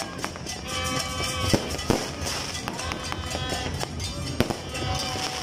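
New Year's fireworks and firecrackers going off in irregular sharp bangs, a few much louder than the rest, over music and voices.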